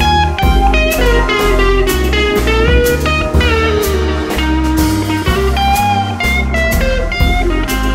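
Background music: a lead melody with sliding, gliding notes over a steady bass and drum beat.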